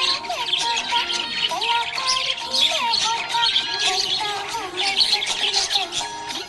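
Budgies chirping and chattering rapidly and continuously over background music with a gliding melody.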